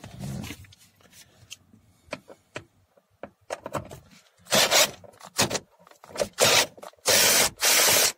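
A few light clicks of a socket and extension being handled, then a cordless drill-driver with a socket adapter run in about five short trigger bursts from about four and a half seconds in, spinning out the door check strap's mounting bolt.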